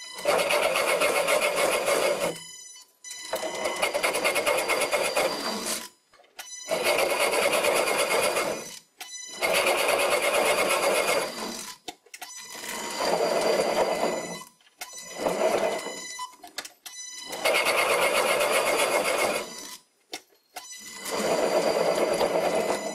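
Old sliding-spindle bench lathe running while its tool bit cuts a screw thread into water-soaked, frozen Meranti wood. It comes as about eight separate cutting passes of two to three seconds each, with short breaks of near silence between them.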